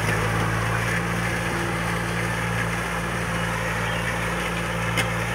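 Kubota M6040 SU tractor's diesel engine running steadily under load as it pulls a disc plough through soil.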